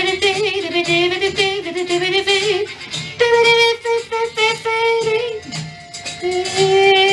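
A man's voice imitating a saxophone, holding long wavering notes in a melodic line with short breaks between phrases, over a soft regular low beat.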